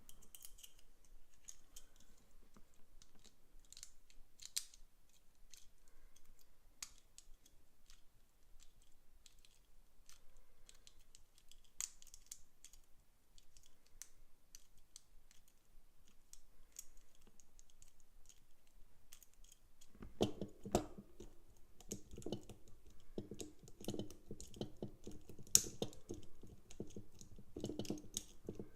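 Small metallic clicks and scrapes of a pick wire and tension tool working the levers inside a Kasp lever padlock. The clicks are sparse at first, then become busier and louder in the last several seconds.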